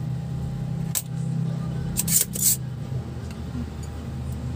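Spring-loaded desoldering pump (solder sucker) snapping as it is fired on a soldering-iron-heated joint to suck molten solder from a circuit-board pad: a sharp click about a second in, then two or three quick clicks around two seconds. A steady low hum runs underneath.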